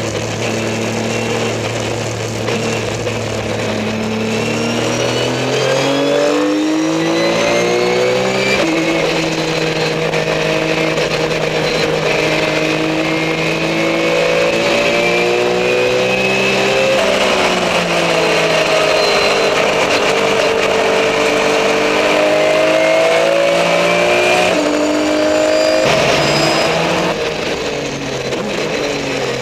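Racing car engine heard from inside the cabin at track speed, its revs climbing under acceleration and stepping down at several gear changes, with no speech over it.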